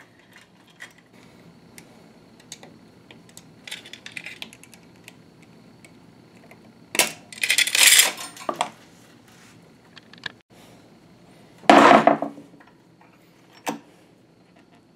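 Small steel chain and metal hardware clinking and rattling against the metal sewing machine during assembly: scattered light clicks, a brighter rattling clatter about seven seconds in, and a louder metal clank with a brief ring near twelve seconds.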